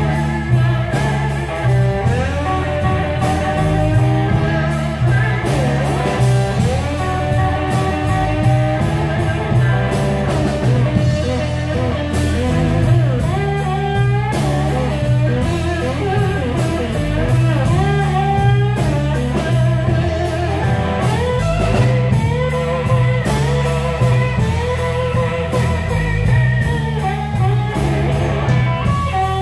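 Live blues-rock band playing: an electric guitar leads with bent, gliding notes over electric bass and drums with steady cymbal hits.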